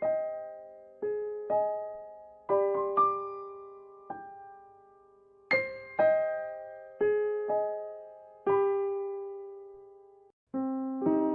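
Background music: a slow, gentle keyboard melody of single piano-like notes, each struck and left to fade, about one a second. There is a brief break near the end, then quicker, lower notes.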